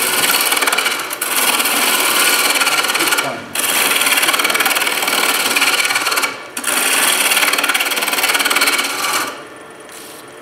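Turning tool cutting a spinning banksia pod on a wood lathe, a loud rasping in four long passes of two to three seconds each, with brief breaks as the tool lifts between them. It stops about nine seconds in, leaving the lathe running quietly.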